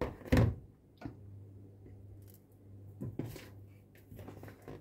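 Short scraping and knocking sounds of kitchenware being handled, four in all, the loudest at the start, over a low steady hum that comes in about a second in.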